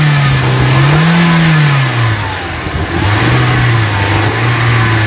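Toyota Avanza's 1.3-litre VVT-i four-cylinder engine being revved in neutral, heard at the open engine bay. The engine note swells up and down over the first two seconds, then settles to a lower, steadier hum. It runs evenly, which the presenter takes as a sign the engine is still in good shape.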